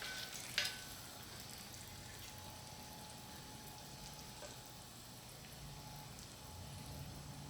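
Faint steady hiss with a low hum underneath, and a light click about half a second in.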